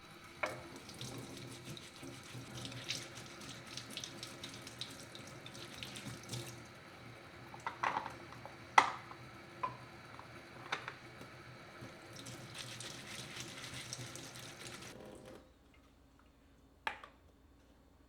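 Water running from a tap into a sink, steady for about fifteen seconds and then shut off, with a few sharp knocks and clinks around the halfway point as things are handled under the stream. Another single knock comes near the end.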